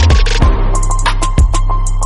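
Background music: an electronic hip-hop style beat with heavy bass and sharp, regular drum hits.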